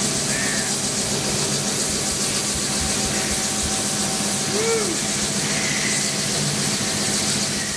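Large CNC mill taking a heavy roughing cut on a frac block, with a steady rushing, hissing noise over a low machine hum.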